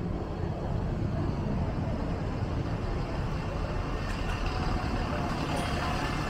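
Steady rumble of road traffic passing on a town street, with faint voices of passers-by.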